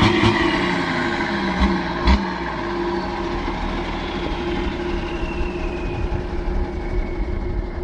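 An engine running steadily, its pitch easing down over the first few seconds, with a few sharp knocks in the first two seconds.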